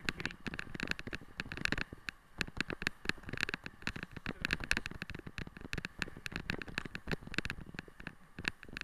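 Dense, irregular rattling and crunching of a wheeled dog-sled rig rolling over a rough dirt track behind a running husky team: quick clicks and knocks with no steady rhythm.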